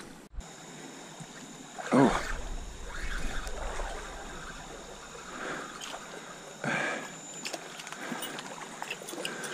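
Shallow stream water trickling and sloshing, with two louder splashes, about two seconds in and again near seven seconds.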